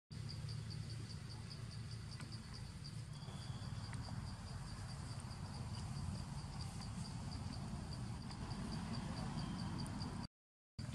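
Insect chirping in a high, quick, evenly repeating pulse, over a steady low rumbling background noise.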